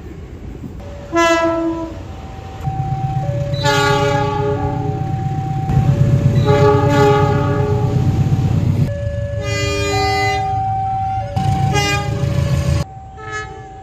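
Indonesian diesel locomotive horns sounding the Semboyan 35 signal: a short chord-like blast about a second in, then several longer blasts. A low rumble from a train runs underneath from about three seconds in and stops shortly before the end.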